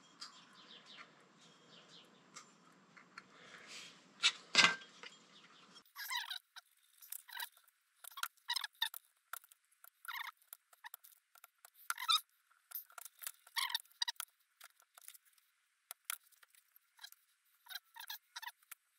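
Faint, irregular small clicks, scratches and light metal taps of hand work on a motorcycle brake caliper as a rubber O-ring is picked out, with one sharper click about four and a half seconds in.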